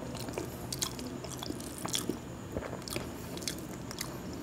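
Close-up chewing of a mouthful of khichuri: scattered soft wet clicks and smacks a few times a second, with fingers working the rice on the plate.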